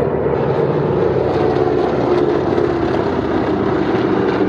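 Formation of twin-engine DC-3/C-47-type transports flying by, their radial piston engines and propellers making a loud, steady drone.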